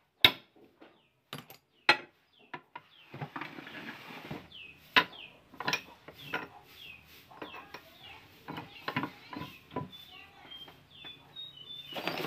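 Sharp metal clinks and knocks of steel tie rod end parts being handled and set against a cast-iron bench vise: a few in the first two seconds and more around five to six seconds in. Chickens cluck and chirp in the background through the second half.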